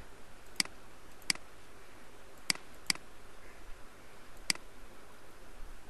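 Five single clicks of a computer mouse, spaced unevenly over a few seconds.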